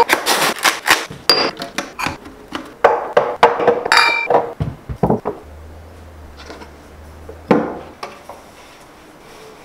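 Kitchenware being handled: knocks and taps of boxes and objects set down on a stone countertop and shelf, with a few ringing glass clinks, packed into the first half. It then goes quieter, with a faint low hum for a couple of seconds past the middle.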